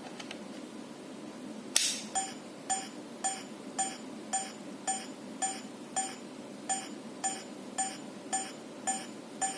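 A sharp click about two seconds in, then a Fluke IntelliTone Pro 200 probe in cable-map mode beeping evenly, about two short beeps a second. This is the result for a patch cable with no broken pin or wire.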